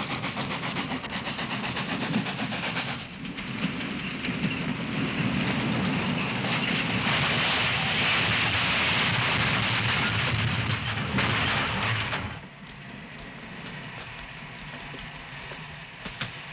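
Steam locomotive running hard: a heavy rumble with loud hissing steam, loudest in the middle stretch, falling away suddenly to a softer hiss about twelve seconds in.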